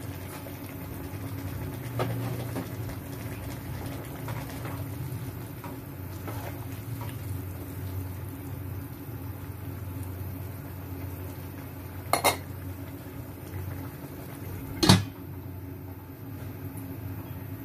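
A nylon spatula stirring and scraping through a simmering vegetable stew in a wok, over a steady low bubbling hiss. Later come two sharp metal clanks about three seconds apart, the second and louder as a stainless steel lid goes onto the wok.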